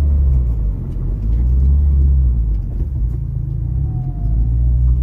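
Low, steady rumble of a motor vehicle running, its drone shifting slightly in pitch.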